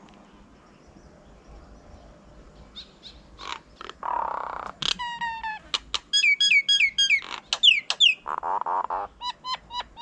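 Common myna calling: a varied run of harsh, grating squawks and clear whistled notes that fall in pitch, beginning about three seconds in.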